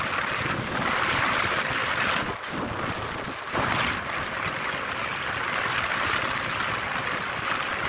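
Steady rush of wind over the microphone of a moving motorcycle, with the bike's engine and tyre noise underneath, easing for about a second near the middle.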